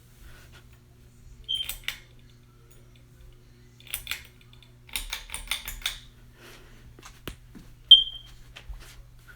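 Ceiling fan's motor humming steadily, with irregular clicks and rattles and two short, high squeaks; the second squeak, near the end, is the loudest sound.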